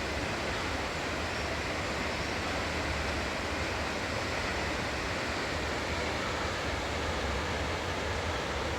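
Steady roar of a distant waterfall, an even rushing noise with no change in level.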